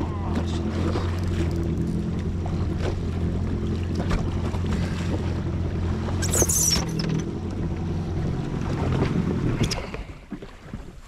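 Yamaha WaveRunner FXHO jet ski engine idling steadily, then stopping near the end. A brief high squeal comes about two-thirds of the way through.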